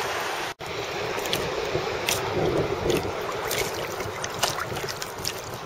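Seawater sloshing and lapping right around the microphone at water level, with small sharp splashes now and then.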